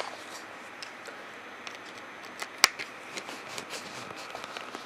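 Small screwdriver turning a hinge screw on a Dell Latitude D430 laptop to tighten its loose screen: faint scattered clicks and ticks, with one sharp click about two and a half seconds in.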